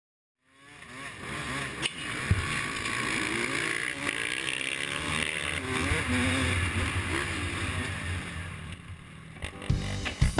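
Two-stroke motocross engines revving hard and rising and falling in pitch as they race, the nearest being the rider's own Honda CR250, heard from the bike's onboard camera. Music cuts in near the end.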